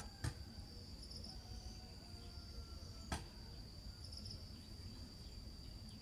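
Faint outdoor ambience: a steady high-pitched insect drone, with a few faint short calls and a single sharp click about three seconds in.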